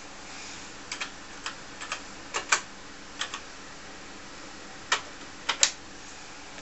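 Keys being typed on a TRS-80 Model 1 keyboard: about a dozen short, irregular clicks in small groups, over a faint steady hum.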